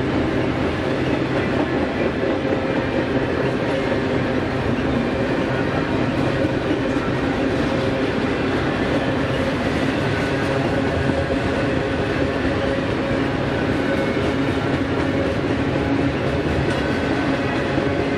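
Double-stack container train's loaded well cars rolling past, steel wheels running steadily on the rails with a faint clickety-clack.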